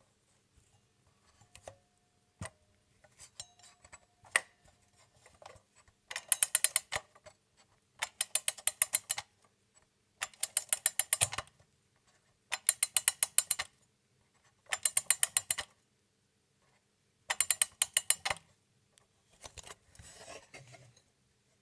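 Old mechanical alarm clock: a few scattered clicks, then its bell rings in six short bursts of rapid hammer strikes, each about a second long with short gaps between, and a fainter rattle near the end.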